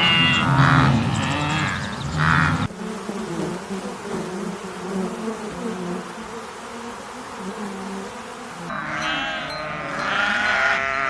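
A cow mooing, cut off sharply after about three seconds, then a quieter stretch of low background sound; near the end several sheep start bleating, overlapping one another.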